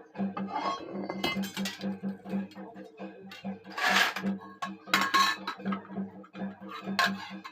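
Scrap iron pieces clanking, several sharp metallic strikes with a short ring, the loudest around the middle, over background music with a steady beat.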